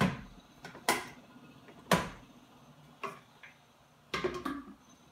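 Blender jar being seated on its base and the lid fitted: a series of sharp clicks and knocks about a second apart, ending in a quick cluster of two or three.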